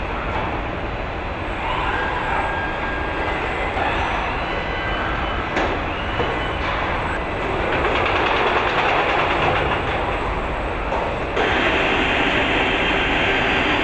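Steady machine noise of an automated car-body assembly line: industrial robots and fixtures running, with a continuous hiss and an occasional click. The sound shifts abruptly and gets a little louder about eleven seconds in.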